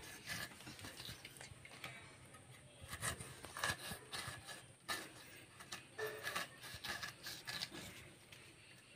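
Pineapple rind being sliced off against a boti blade: irregular short cutting and scraping strokes through the fibrous peel.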